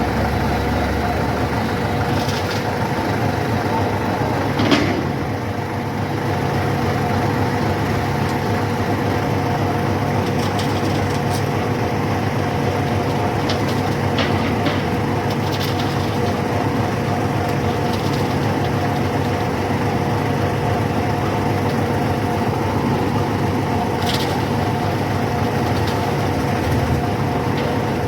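Heavy diesel construction machinery running steadily at the bridge piling site, with a few short metallic knocks, one louder a little under five seconds in.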